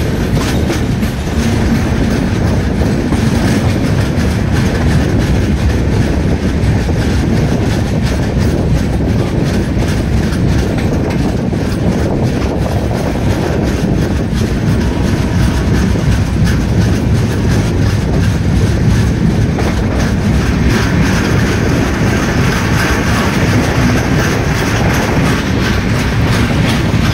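Train running at speed, heard from inside a coach at an open window or door: a loud, steady rumble of wheels on rails with rapid clicking over the rail joints. In the last few seconds a freight train of covered wagons passes close alongside on the next track, adding a brighter rattling.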